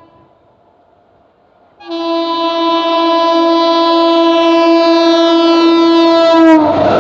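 Indian Railways express locomotive's horn: one long steady blast starting about two seconds in, its pitch dipping slightly at the end as the locomotive passes. It gives way to the loud rush of the express train going through the station at speed.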